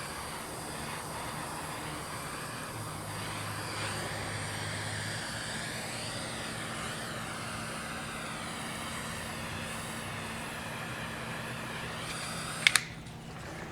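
Small handheld soldering torch flame hissing steadily as it shrinks heat-shrink tubing. About a second before the end, two sharp clicks come and the hiss stops as the torch is shut off.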